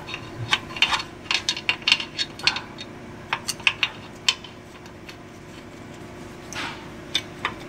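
Irregular sharp metallic clicks and clinks of a wrench and socket on the fill plug of a semi truck's rear axle housing, as the plug goes back in after the gear oil has been topped up. The clicks come thick and fast for the first few seconds, then a few more near the end.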